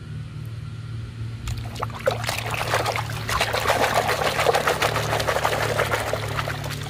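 A hand swishing and scrubbing muddy plastic toys in a bucket of water, with rapid, continuous splashing that builds up about two seconds in and eases off near the end.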